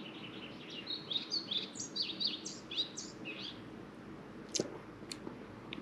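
A songbird singing: a quick run of repeated high notes, then a varied, warbling phrase of high notes that ends about three and a half seconds in. Two faint clicks follow near the end.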